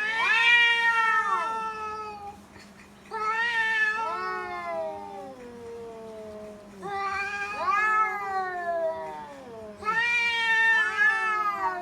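Two cats yowling at each other in a territorial standoff: long, wavering caterwauls that rise and fall, in four drawn-out bouts, the two voices overlapping.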